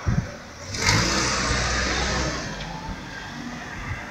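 A car passes close by: its engine and tyre noise swells about a second in, then fades over the next couple of seconds.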